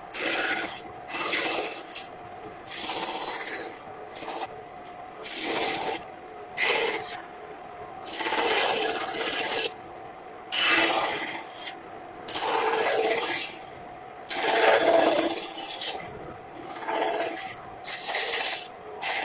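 A hand tool scraping along wood in about a dozen long, unevenly spaced strokes, each a second or so.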